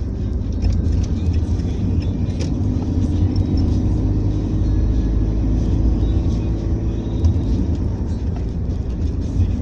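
A car's engine and tyres, heard from inside the cabin while driving at an even pace: a steady low rumble.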